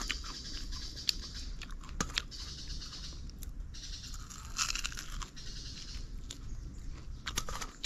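Biting into and chewing crispy fried chicken coated in crushed Lay's chips, the crust crunching in bursts with small sharp clicks.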